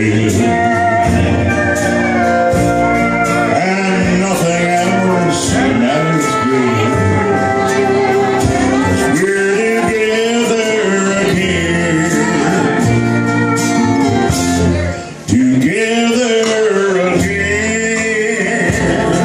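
Country band playing live: a man sings lead over acoustic and electric guitars, pedal steel guitar, bass and drums.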